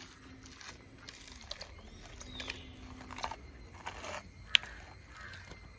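Faint wet handling sounds of hands pulling open the belly of a large mahi-mahi and drawing out its guts and roe, with scattered light clicks and one sharp click about four and a half seconds in.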